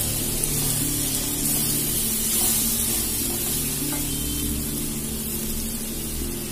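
Sliced onions sizzling in a hot wok as a water-thinned spice paste is poured in and stirred with a wooden spatula, the sizzle strongest a couple of seconds in. Background music with held low notes plays under it.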